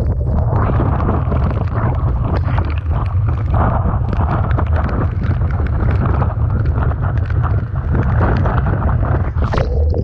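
Typhoon-strength wind buffeting the microphone with a constant low rumble, over the rush of rough sea and blowing spray, with many small crackles throughout.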